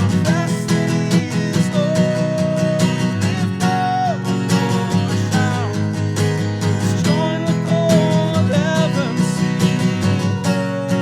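Worship band music: strummed acoustic guitar chords under a lead melody that holds long notes and slides between them.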